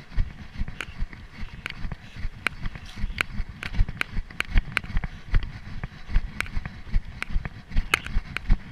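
Running footsteps on grass and stony ground, heard through a chest-mounted action camera: an irregular series of thuds with sharp clicks and knocks among them.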